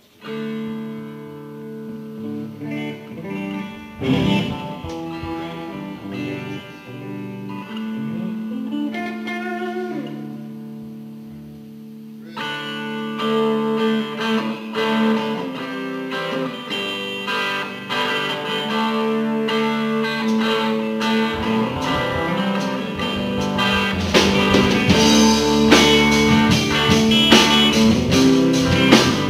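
Live blues-rock jam led by electric guitars. It is sparse and quieter at first, then the band plays fuller from a little before halfway and louder still near the end.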